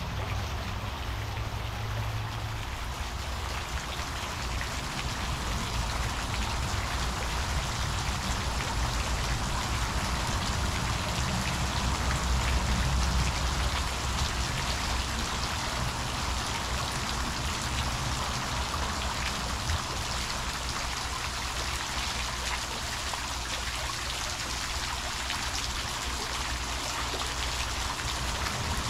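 Steady rush of running water, with a low uneven rumble underneath.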